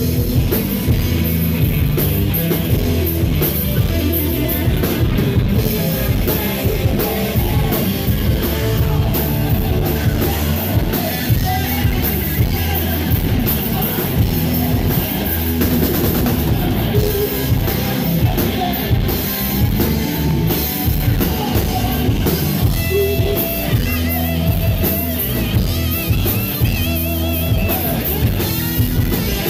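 Live rock band playing a loud blues-rock song: electric guitars, bass guitar and a drum kit, with a wavering high line coming in near the end.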